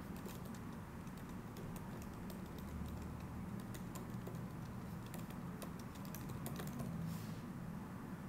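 Typing on a computer keyboard: a run of quick, irregular key clicks over a low steady hum.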